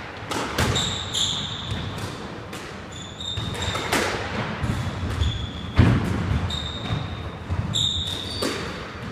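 A squash rally: the ball is struck by rackets and hits the court walls about once a second, mixed with short high squeaks of squash shoes on the wooden court floor. The sharpest hit comes about six seconds in.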